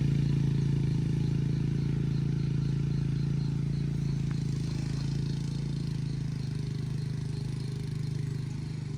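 An engine running steadily at an even speed, gradually getting quieter.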